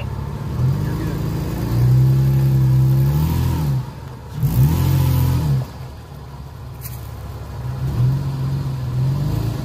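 Toyota Tacoma pickup's engine revving in repeated surges as the truck crawls over a dirt mound, easing off between them: a long rise from about a second in to about four seconds, another around five seconds, and a smaller one near the end.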